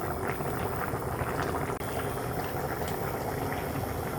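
Fish and vegetable curry bubbling in its sauce in a pan, a steady simmer.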